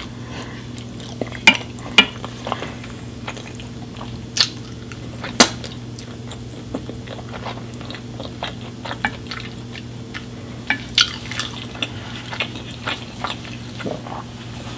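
Cutlery clinking and tapping against a dish, with some chewing, in scattered sharp clicks over a steady low hum.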